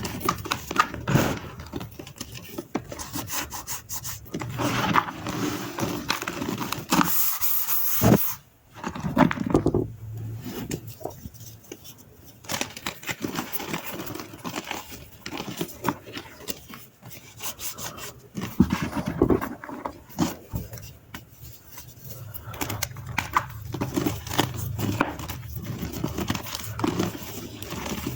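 Dry gym chalk being crushed and crumbled, a dense, irregular crunching and crackling with rubbing and scraping of the powder. There is a short lull a little past eight seconds in.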